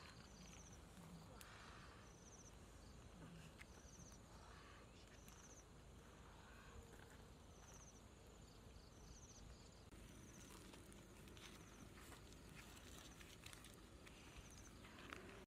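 Near silence: quiet outdoor ambience in which a small insect chirps in short high trills every couple of seconds, with faint clicks and rustles from about ten seconds in.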